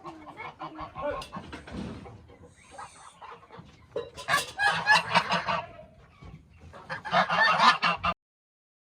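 Geese honking, with scattered calls at first and then two loud bouts of harsh honking about four and seven seconds in, cutting off suddenly near the end.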